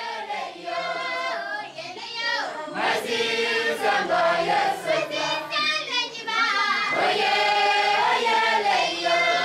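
A group of children singing together as a choir, getting louder about three seconds in.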